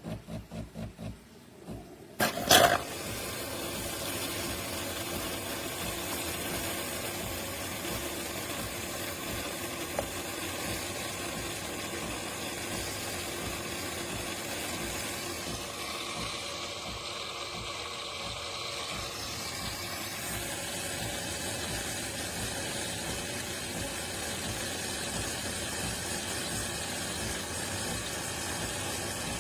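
De'Longhi Rivelia bean-to-cup espresso machine working through a brew cycle: a few quick pulses, then sharp clicks about two seconds in, followed by a steady mechanical whirring with hiss that shifts partway through.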